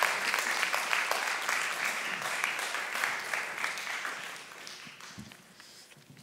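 Audience applause, many people clapping, fading away to quiet about five seconds in.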